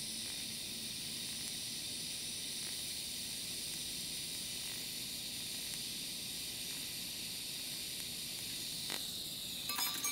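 TIG welding arc on mild steel giving a steady, even hiss as filler rod is fed into a vertical outside-corner weld. A few faint clicks come near the end.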